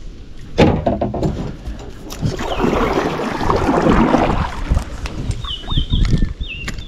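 Water sloshing and knocking around a kayak, with wind rumbling on the microphone. A bird gives several short, high chirps near the end.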